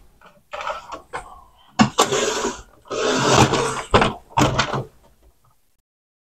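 Handling noise from the metal chassis of an opened Sony CD changer being shifted and turned around: about five separate scraping and knocking bursts, stopping about a second before the end.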